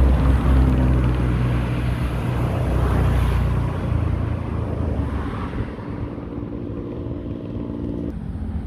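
A motor vehicle's engine running steadily on the road, loudest at the start and fading as it moves away, with a shift in its pitch near the end, over a haze of wind and surf noise.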